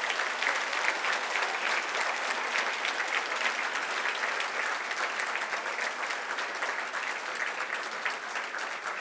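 Audience applauding: many people clapping in a dense, steady patter that eases slightly near the end.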